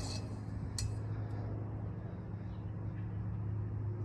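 A steady low hum, with one sharp click a little under a second in.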